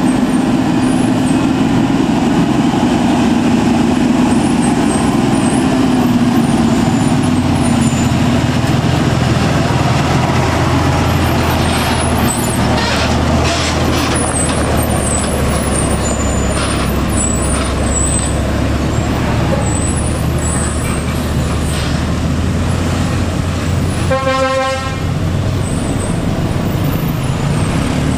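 Scania P380 heavy truck's diesel engine running as the tractor and its crane-laden low-bed trailer come down a steep hill and pass close by, with tyre and road noise. A short horn toot sounds near the end.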